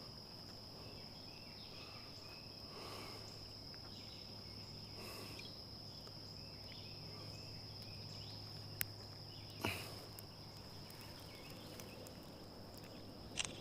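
Outdoor ambience of a steady, high-pitched insect drone with a low hum beneath it. There is a single sharp click about nine seconds in and a short thump about a second later.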